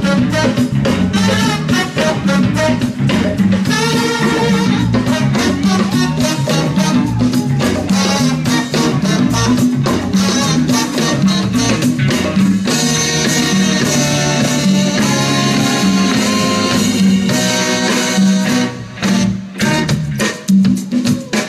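Live funk-soul band playing an instrumental: electric guitar, bass, drums and congas under a horn section, with a steady beat. The band drops back for a moment near the end.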